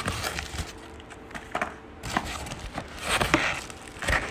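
Crinkling and rustling of a metallic plastic bubble mailer as hands dig inside it and pull out the packaging, in an irregular run of small crackles.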